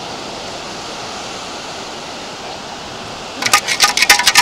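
Steady rush of surf and wind, then about three and a half seconds in, a rapid metallic rattling and clinking as a perforated metal beach sand scoop is shaken, sifting sand and pebbles through its holes.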